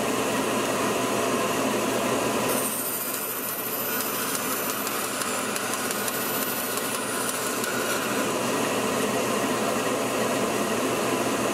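Bandsaw and a shop dust-collector vacuum running steadily while the blade cuts a small basswood blank. The cutting adds a faint high edge to the sound from about two and a half to seven and a half seconds in.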